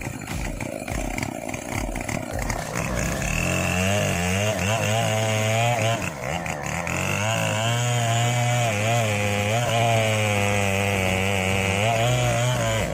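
Chainsaw engine running hard while cutting wood. A rougher, noisier sound at first; about three seconds in it settles into a loud, steady buzz whose pitch wavers slightly as the chain works through the cut.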